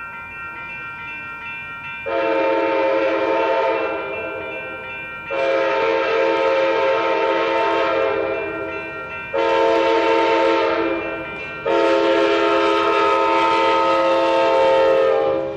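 Amtrak Capitol Corridor F59PHI diesel locomotive's horn sounding the grade-crossing signal: two long blasts, a short one and a final long one, a chord of several tones. Under it a railroad crossing bell rings steadily, heard alone for the first two seconds.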